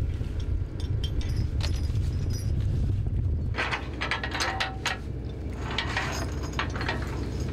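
Low steady rumble of the trawler's engine. About three and a half seconds in, steel chain starts clinking and rattling against the steel trawl door as it is handled.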